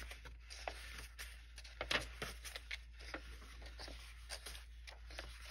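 Paper pages of a book being turned over one after another: soft rustling with several light paper flicks.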